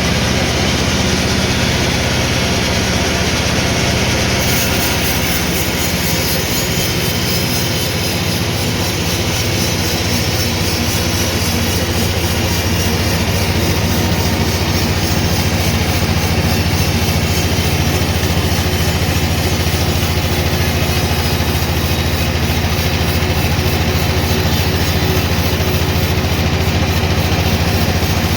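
Sawmill machinery running steadily with a deep hum; the high hiss changes about four seconds in.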